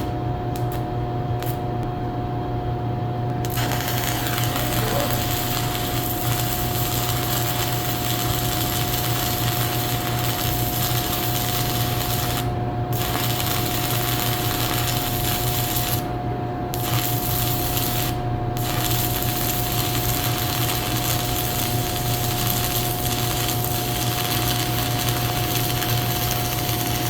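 Stick-welding arc from a DOMHOAI 110 V inverter welder crackling and sizzling steadily. It strikes a few seconds in and breaks off briefly three times. The welder's cooling fan hums underneath. The settings are running way too high for the metal.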